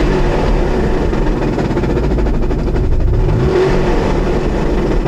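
Mazda RX-8's twin-rotor rotary engine running, with a short rise in revs about three seconds in after a light blip of the throttle. The owner suspects the clutch or its thrust bearing.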